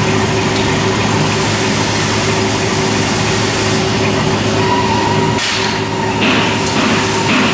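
Steady machine hum of a robotic welding cell as the robot arm swings through its moves, with a higher whine joining in about five seconds in.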